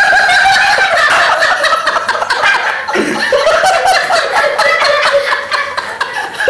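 Loud, high-pitched shrieking laughter that starts abruptly, pulsing rapidly, with a short break about three seconds in.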